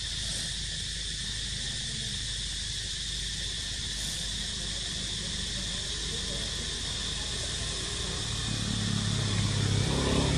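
Steady, high-pitched insect chorus over a low background rumble. Near the end a louder low hum comes in.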